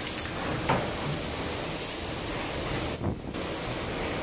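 Steady whirring hiss of CNC metal spinning machines running. The hiss thins briefly about three seconds in.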